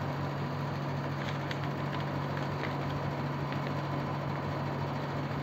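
A steady low hum with a faint higher tone above it and a few faint ticks.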